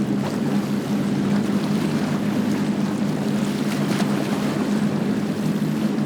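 Motorboat engine running at a steady pitch, with a rushing noise of water.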